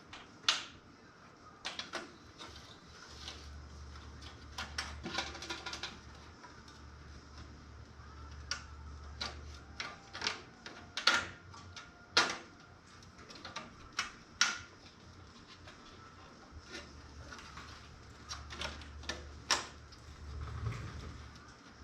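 Scattered sharp clicks and metal knocks of computer parts being handled and fitted into a thin sheet-metal toaster oven shell.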